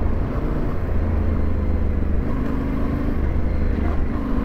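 Yamaha Ténéré 700's parallel-twin engine running steadily under way, heard from the bike itself, with its note shifting slightly about halfway through.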